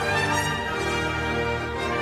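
Background music laid over the video: instrumental theme music of held notes, changing to new notes about halfway through.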